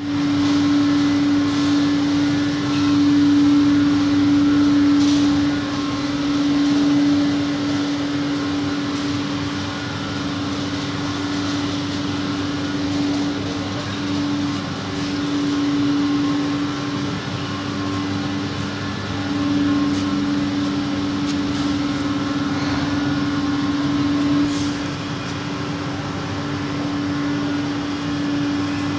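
Steady hum of running factory machinery: one strong, steady tone over an even rushing noise, growing a little louder and softer now and then.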